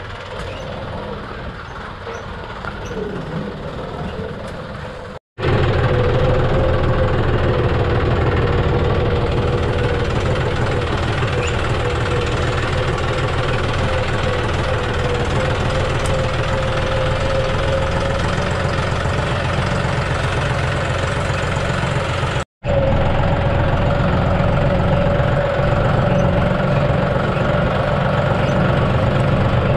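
John Deere 5065E tractor's three-cylinder diesel engine running steadily, heard up close from the operator's seat: a fast low pulsing with a steady whine above it. For the first few seconds it is quieter and more distant, and the sound drops out briefly twice.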